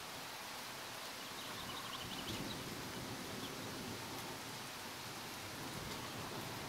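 Faint steady outdoor hiss of a stormy day, with a few faint high chirps about two seconds in; no thunder.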